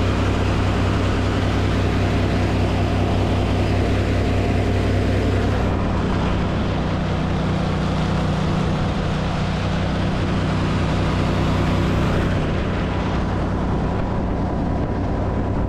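Briggs & Stratton Vanguard V-twin engine on a Gator-Tail surface-drive mud motor running steadily at speed, pushing an aluminium boat across open water.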